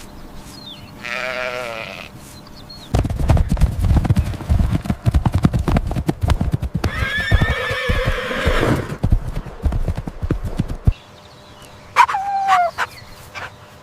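Horse hooves galloping, a rapid run of knocks lasting several seconds, with a horse's whinny over them in the middle. A short falling animal call sounds near the end.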